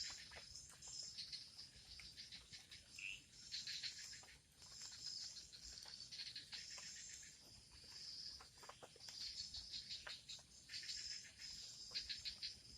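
Insects chirping in the forest: high, rapidly pulsing bursts lasting a second or two each, stopping and starting several times.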